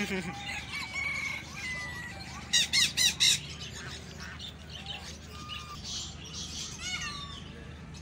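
Caged chickens and other birds calling: many short chirps and calls throughout, with a loud run of four sharp squawks about two and a half seconds in and another call near the end.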